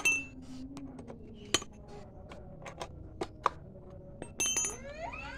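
Scattered light metallic clicks and taps of a hand tool working on a small chainsaw's exposed engine parts, a few sharper knocks among them.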